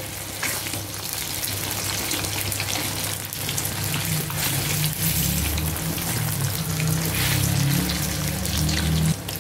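Marinated fish steaks shallow-frying in hot oil in a pan: a steady sizzle. A low hum joins about four seconds in.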